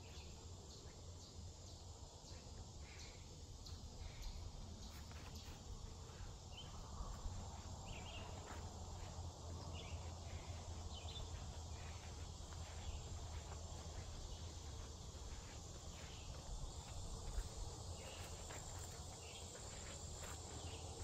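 Insects chirring steadily, with footsteps along a dirt trail.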